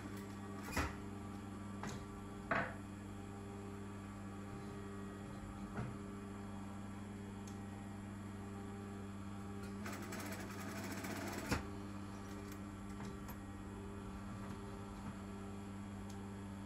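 Brother industrial sewing machine stitching a neckline: a steady hum, a few sharp clicks in the first seconds, and a short run of stitching about ten seconds in that ends with a click.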